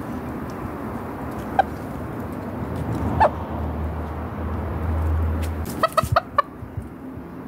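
Chickens clucking: a single short cluck about one and a half seconds in, another about three seconds in, then a quick run of about five clucks around six seconds in. A low steady rumble runs under the middle part.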